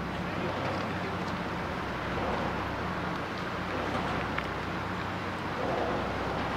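A steady low engine drone under a constant hiss of wind and open-air noise.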